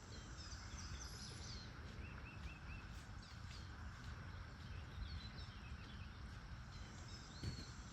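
Steady low outdoor background noise with faint, scattered high bird chirps, including a quick run of four short chirps about two and a half seconds in.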